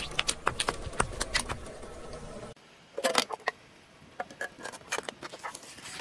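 A car tyre rolls over a row of laundry detergent pods, giving a rapid series of sharp pops and crackles over a low tyre rumble on asphalt. About two and a half seconds in it cuts to a fainter scene: a tyre flattening paper-wrapped cylinders, with a short burst of crunching and then scattered crinkles and cracks.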